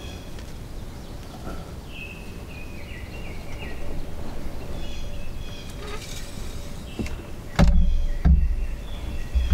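Wild turkeys calling close by, short runs of stepping yelps and clucks repeated every second or two. About three-quarters of the way through, two loud low thumps of movement in the blind as the compound bow is drawn.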